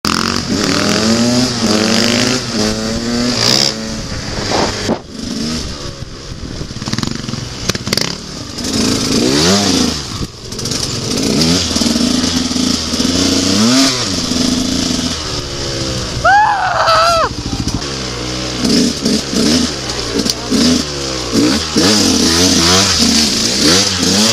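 Enduro dirt bike engines revving, their pitch climbing and dropping again and again as the bikes accelerate, shift and ease off.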